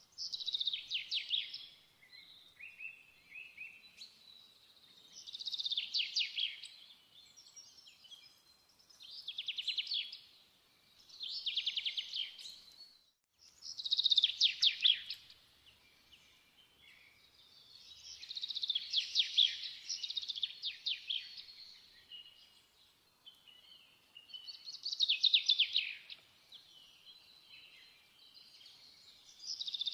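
A songbird singing short, rapidly trilled phrases, repeated every few seconds.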